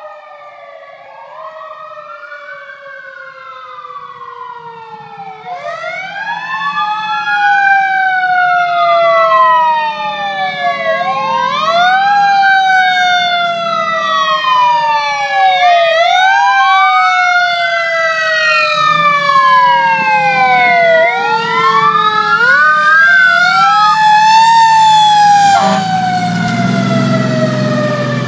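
Fire engine siren wailing, its pitch rising quickly and falling slowly over and over, growing much louder as the truck approaches. The truck's engine rumble rises under the siren near the end as it drives past.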